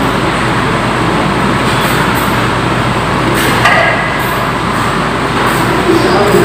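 Steady hum and hiss of a fast-food restaurant dining room, air conditioning and ceiling fans running, with faint distant voices. A brief knock sounds about three and a half seconds in.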